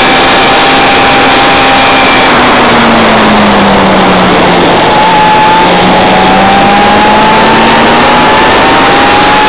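Onboard sound of a motorcycle lapping a racetrack: loud wind rush on the microphone over the engine. The engine note drops through the corner, then climbs steadily as the bike accelerates out onto the straight.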